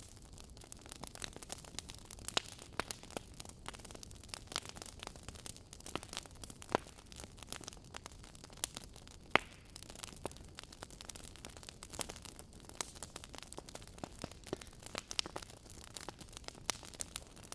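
Wood fire burning in a fireplace, logs crackling and popping at irregular intervals over a low hiss, with one louder pop about nine seconds in.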